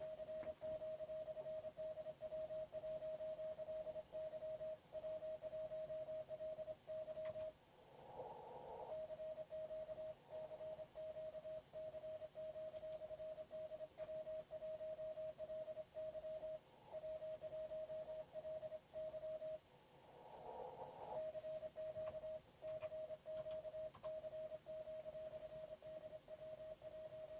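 Morse code from an amateur radio transceiver on the 20-metre band: a single steady tone of about 600 Hz keyed on and off in dots and dashes. In two pauses, about eight and twenty seconds in, the band's hiss swells up before the keying resumes.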